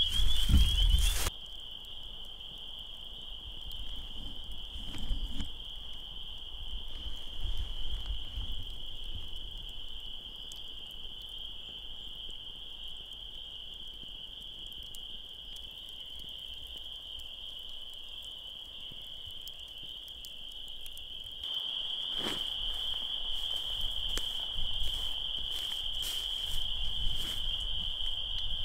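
Dense chorus of frogs calling from a bog, a continuous high-pitched ring, described as so loud it almost hurts the ears. It grows louder about two-thirds of the way through. A brief low rumble fills the first second, and scattered sharp clicks come in the second half.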